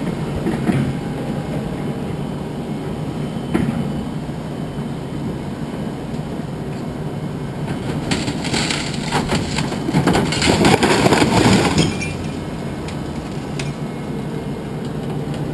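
Scrap appliances being dumped off a load, sheet metal crashing and clattering for about four seconds from around eight seconds in, after a couple of single knocks. An engine runs steadily underneath.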